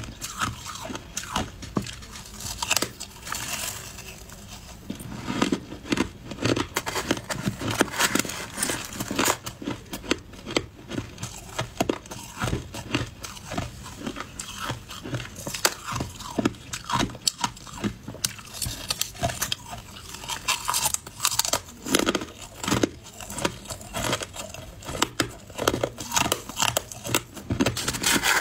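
Close-up crunching and chewing of frozen shaved ice, a rapid, irregular run of sharp crunches.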